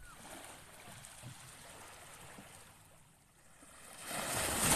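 Small waves washing onto a sandy beach, a steady wash that swells into a louder surge near the end.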